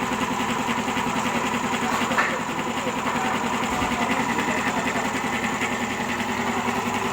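Air compressor driven by a freshly rewound 1.5 hp electric motor, running steadily with a fast, even pumping pulse.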